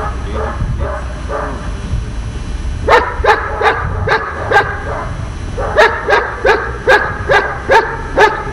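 A dog barking repeatedly in protection training: a few fainter barks at first, then loud sharp barks from about three seconds in, a brief pause, and a steady run of about two to three barks a second toward the end.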